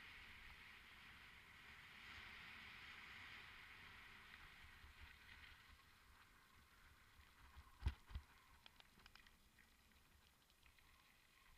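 Faint, steady hiss of a mountain bike rolling downhill, tyre noise and wind on a helmet-mounted camera, fading away over the stretch. About eight seconds in come two quick knocks, followed by a few light clicks.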